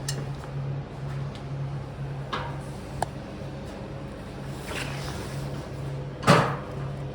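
Air filter being taken off the carburettor of a 1939 Austin 12: scattered metal clicks and scrapes, with a louder clank about six seconds in, over a steady low hum that pulses about twice a second.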